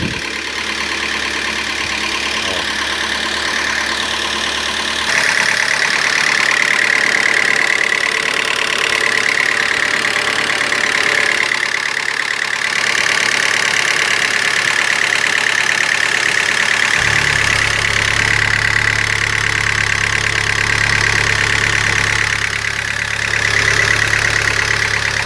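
Citroën C4's 2.0 16-valve four-cylinder engine idling with a persistent fast mechanical knocking from the engine. No oil-pressure warning comes on, and the knock rises when the engine is revved. A deeper hum joins past the middle.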